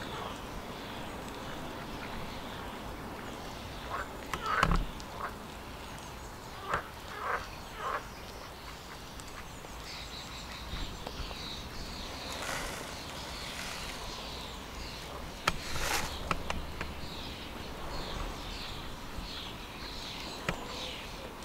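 Birds calling outdoors: a few short calls about four to eight seconds in, then a run of quick, high chirps from about halfway through. A couple of sharp knocks are heard, one near the start of the calls and one later.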